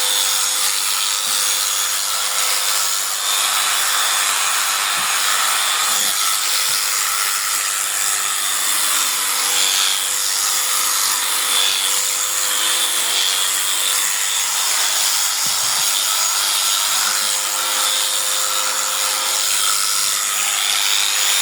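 A small power tool or motor running steadily, giving a continuous whirring hiss with a faint steady hum.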